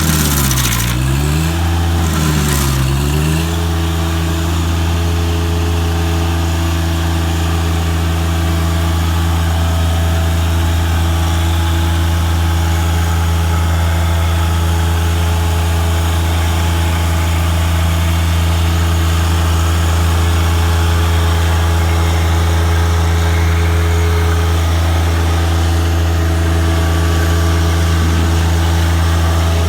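Stump grinder's gas engine running at steady speed, dipping in speed twice in the first few seconds before settling back to a steady run.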